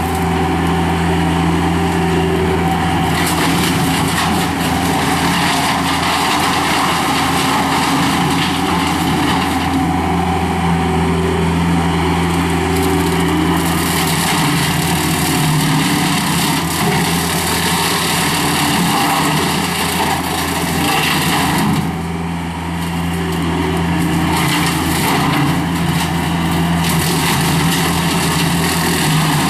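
Skid steer loader running steadily under load, driving a CID Xtreme 60-inch brush cutter attachment; a constant engine hum sits under a harsher hiss that grows and fades over several seconds at a time.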